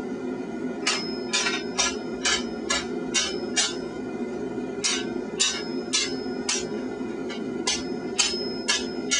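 Blacksmith's 1,000 g partially crowned hand hammer striking hot mild steel on the anvil in short runs of blows, about two a second, each with a brief high ring, shaping the steel into irregular curves. A steady low roar runs underneath.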